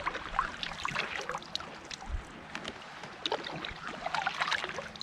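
Water lapping and splashing lightly against a kayak hull, with small irregular drips and splashes.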